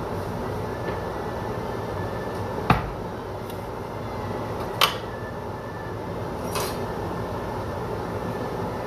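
Kitchen noise: a steady hiss with a low hum under it, broken by two sharp clacks about two seconds apart and a softer one later, the sound of utensils or cookware being handled at the counter.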